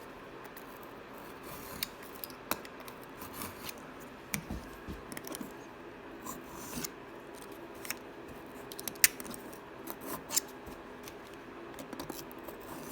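A knife cutting and trimming around the edge of a lawnmower air filter pressed onto a metal filter housing: irregular short cutting strokes, scrapes and small clicks.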